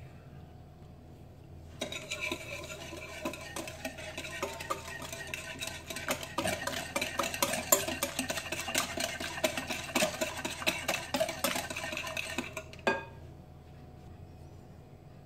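Wire whisk beating an egg with sugar in a glass bowl: fast, continuous clinking of the wires against the glass. It stops near the end with a single sharp knock.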